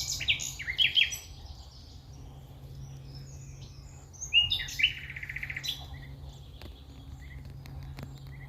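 Wild songbirds singing in woodland: a quick run of chirps at the start and a rapid trill of repeated notes about four and a half seconds in.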